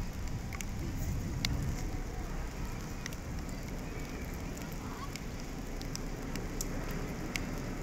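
Light rain falling, with scattered raindrops tapping sharply on umbrellas close by, over a low steady rumble.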